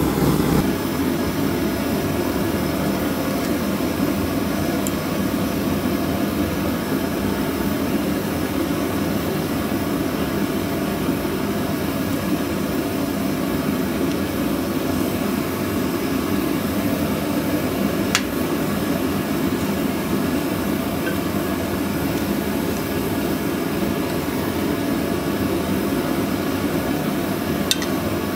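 Gas forge burner running with a steady rushing noise, with two short clicks, one past the middle and one near the end.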